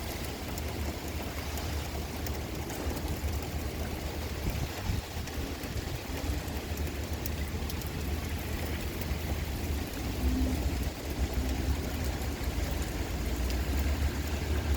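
Heavy typhoon rain pelting down in strong wind, with gusts buffeting the microphone in a fluctuating low rumble. It grows a little louder toward the end.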